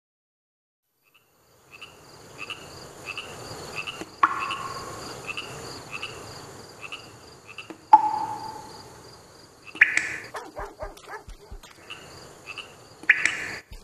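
Night ambience of frogs and insects. It starts about two seconds in: a steady high insect trill and a short chirp repeating a bit faster than once a second. Two sharp ringing clicks and two louder frog calls come near the middle and end.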